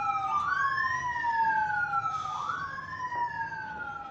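A siren wailing, each cycle rising quickly and falling slowly, about every two seconds, fading as it goes.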